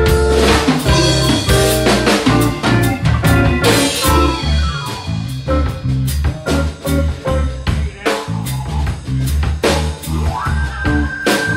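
Live band playing an instrumental passage with no singing: electric guitar, bass guitar, drum kit and electric keyboard. A high note is held near the end.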